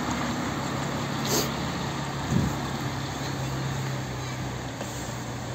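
Mercedes-Benz Actros 4144 fire truck's diesel engine running steadily as the truck pulls away, with a short hiss of air about a second in and a low thump a second later; the engine gets a little quieter near the end as the truck moves off.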